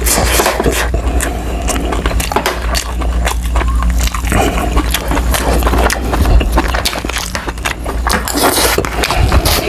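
Close-miked eating sounds: a metal spoon and fork clicking and scraping against the food and plate, then chewing on a mouthful of tuna-roe adobo, over a steady low hum.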